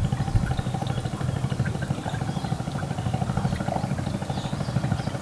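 A small boat engine running steadily, with an even, fast pulse.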